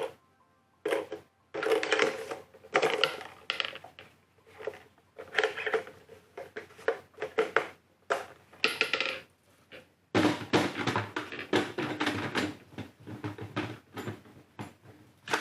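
Hard plastic parts of a Ryobi PCL733B compact wet/dry vacuum being handled: a run of clicks, knocks and rattles as the filter and canister pieces are worked, busier in the last few seconds.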